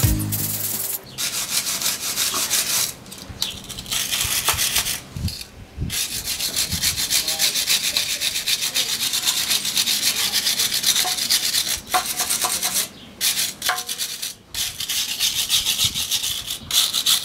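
Hand-held steel wire brush scrubbing the dirty gearbox casing of a Ford Sierra in fast back-and-forth strokes, scratching off dirt and grime, in several bouts with short breaks between them.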